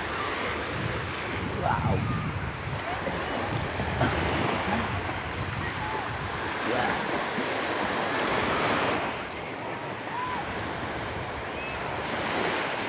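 Small waves washing up the beach in a steady hiss of surf, with wind rushing over the microphone.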